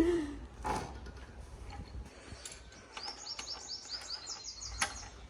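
A small bird chirping: a quick run of repeated high notes starting about three seconds in, over a few faint knocks.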